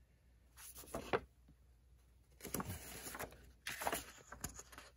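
Paper pages of a printed instruction manual being flipped, rustling in a few short bursts.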